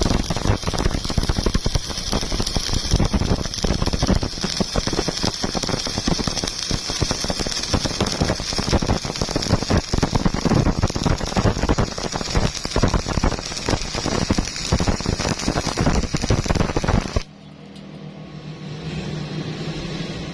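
Stick (shielded metal arc) welding with an E6013 electrode: the arc crackles and sputters steadily, then stops abruptly near the end, leaving a fainter steady hum.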